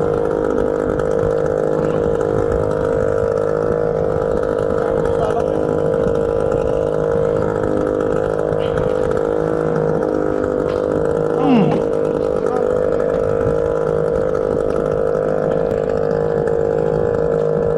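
A small engine aboard a fishing boat running steadily, an even pitched drone. One short, sharper squeak-and-knock about two-thirds of the way in.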